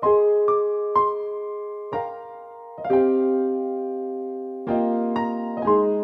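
Background music: slow solo piano, with single notes and chords struck every half second to a second and each left to ring and fade.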